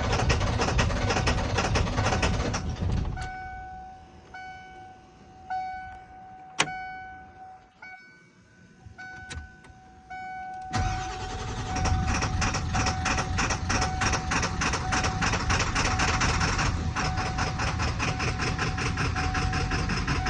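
Ford 7.3L Power Stroke diesel V8 cranking hard and struggling to start. It stops about three seconds in, while a dashboard warning chime beeps about once a second with one sharp click, then cranking resumes about eleven seconds in. It is the hard-start fault that the owner suspects comes from a bad ICP sensor, high-pressure oil pump or injectors.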